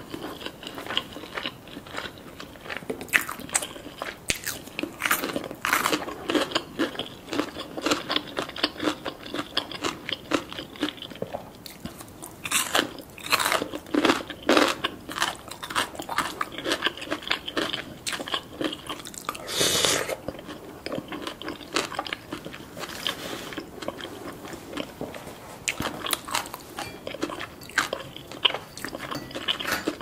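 Close-miked chewing of soft food in a creamy sauce, with many short wet mouth clicks and smacks. There is one brief, louder breathy rush about twenty seconds in.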